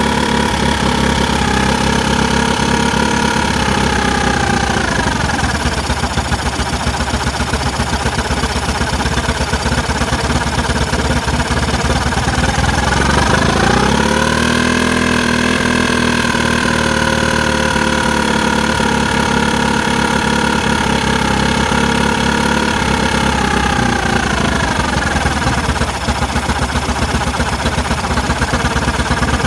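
Carbureted engine idling roughly with a fast, uneven pulsing. Its speed sinks a few seconds in, climbs back about halfway through, then sinks again and starts to climb near the end. This is a rough idle that a freshly cleaned, spotless carburettor has not cured.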